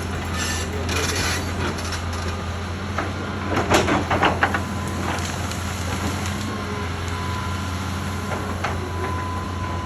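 Excavator's diesel engine running steadily under load while it pushes through forest. A burst of sharp cracking about three and a half to four and a half seconds in, the loudest moment, is wood snapping as trees and branches give way. A faint steady whine joins about six seconds in.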